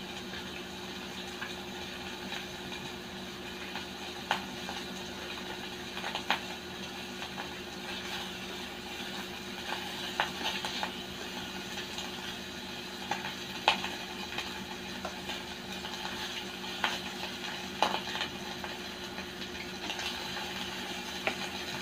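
Pork slices sizzling on a hot non-stick grill pan, with metal tongs clicking against the pan every few seconds as the meat is turned.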